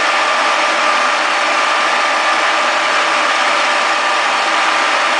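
Conventional milling machine running steadily with a constant high whine, its spindle driving a friction stir welding tool in aluminium alloy plate.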